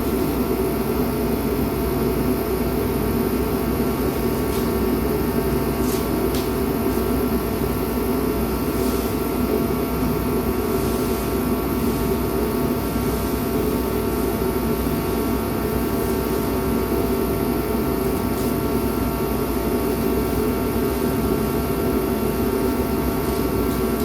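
Steady mechanical drone of a running motor, humming on several steady tones without change.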